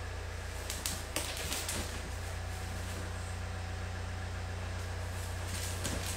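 A few light clicks and knocks from handling the parts of a new chair being assembled, about a second in and again near the end, over a steady low hum.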